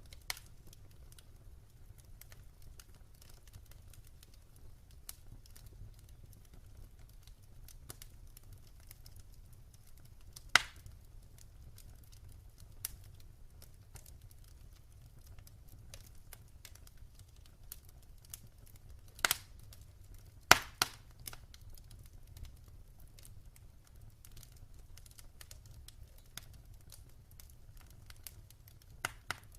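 Wood fire crackling in a fireplace: scattered small snaps and pops over a faint low rumble, with a few much sharper pops, one about a third of the way in and two close together about two-thirds through.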